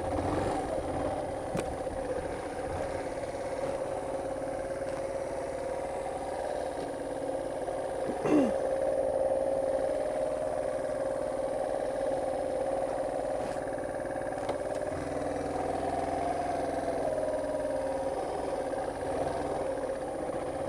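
Motorcycle engine running steadily at low road speed, heard from the rider's seat. About eight seconds in there is a short, louder sound that slides downward in pitch.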